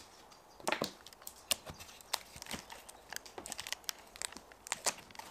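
Elm boards being set down into a tape-lined resin mould and shuffled into place: irregular light knocks and rubbing of wood against the taped mould.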